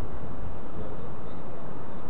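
Wind buffeting the microphone: a steady, loud rumbling noise that flickers unevenly in the lows.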